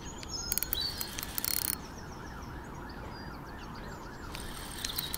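Spinning reel clicking in quick runs while a hooked carp is played: a run of about a second and a half at the start and another near the end. Between them a wavering, siren-like tone rises and falls about four times a second, with faint bird chirps.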